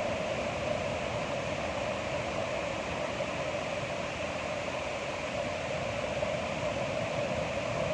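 Ocean surf: a steady rushing wash of waves, with no single break standing out.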